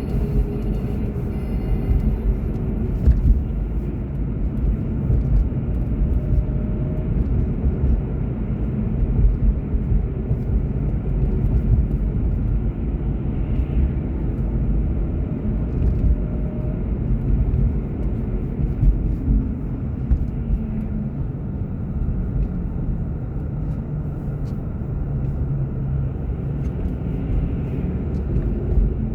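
Car driving: a steady low engine and road rumble, with faint tones drifting up and down as the speed changes.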